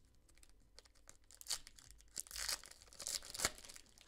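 A foil basketball-card pack being torn open by hand: the wrapper crinkles and rips in several short bursts that get louder, with one sharp crack about three and a half seconds in.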